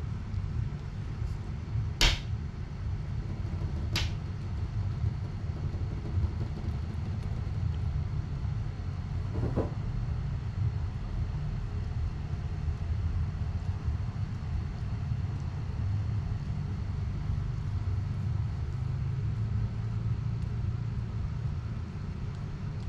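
Steady low rumble, with two sharp clicks about two seconds apart near the start.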